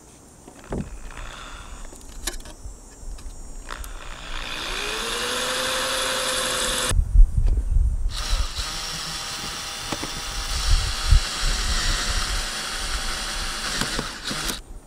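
Electric drill boring into a stainless steel flue pipe: the motor whine rises as it spins up and then holds steady, and it cuts off abruptly about seven seconds in. A second later a cordless drill runs steadily into the pipe for about six seconds.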